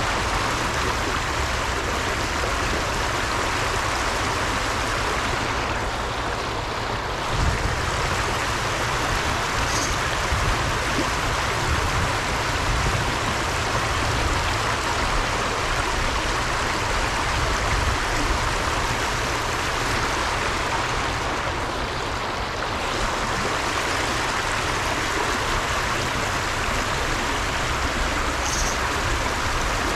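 Running stream water: a steady rushing hiss with a low rumble underneath.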